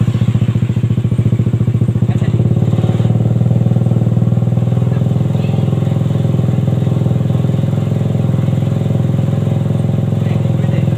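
Suzuki Satria FU 150cc single-cylinder four-stroke motorcycle engine powering a homemade mini buggy, running steadily at an even pitch.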